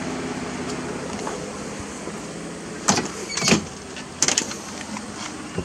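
Several short knocks and bumps, about three seconds in and again a second later, as someone gets in at the open door of a pickup's cab. A steady low hum runs underneath.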